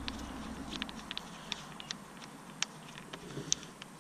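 A coolant temperature sensor being spun out by hand from a plastic radiator tank: faint, irregular light clicks of its threads and fingers on the fitting.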